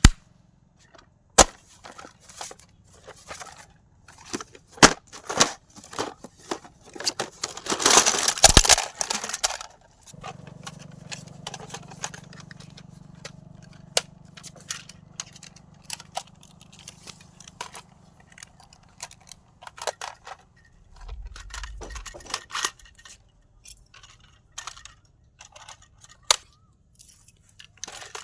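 Toy machine gun: scattered sharp clicks and snaps, with a dense burst of rapid firing lasting about two seconds, about eight seconds in. A steady low hum follows for several seconds.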